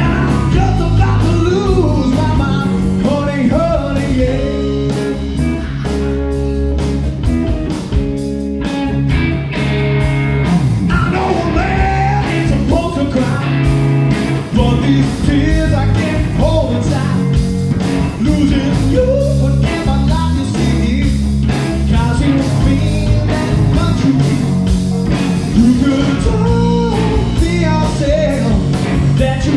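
Live rock band playing: electric guitars, bass and drums, with a singer's vocals over them.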